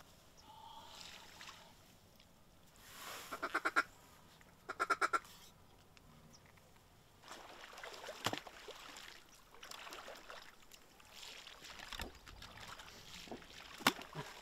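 Duck quacking in two quick runs about a second apart, the first growing louder. A couple of sharp clicks follow later.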